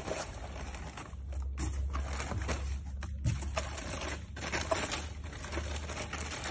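Foam packing pieces and a clear plastic bag rustling and crinkling as a car head unit is unpacked, with a few light knocks from handling.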